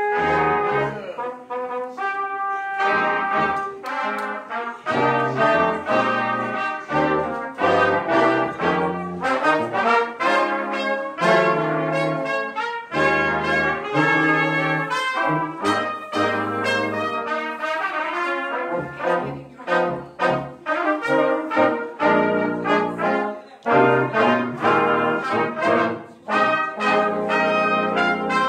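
Live brass ensemble of trumpets, French horn, trombone and tuba playing a piece together, many short notes over a tuba bass line.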